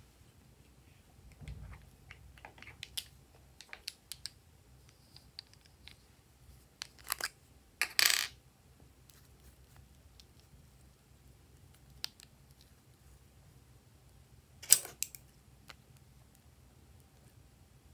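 Small clicks and taps of plastic toy lipstick tubes being handled and uncapped, with two louder sharp clacks, one about halfway through and another a few seconds later.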